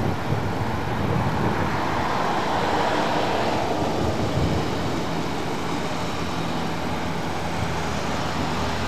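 Steady vehicle rumble with a faint low hum.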